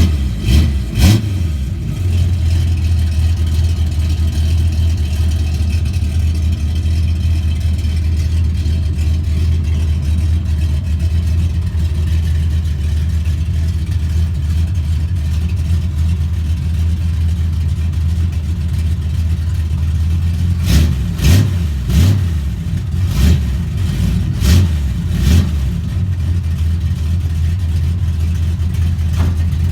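1955 Chevy's small-block V8 catching as it starts, then idling steadily; near the end it is blipped several times in quick short revs before settling back to idle.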